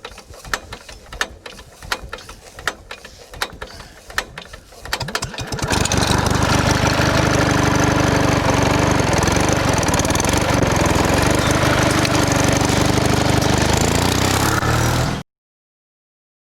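A series of irregular clicks and knocks for about five seconds, then an engine starts and runs steadily at a constant speed before cutting off abruptly.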